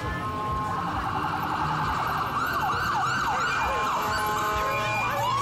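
Fire engine siren sounding, first in a fast warble and then in quick rising-and-falling sweeps.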